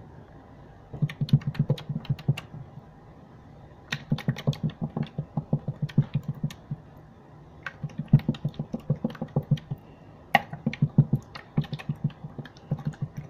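Blue slime being squeezed and pressed against a wooden tabletop by hand, giving rapid runs of sticky clicks and pops, several a second, in four bursts with short pauses between.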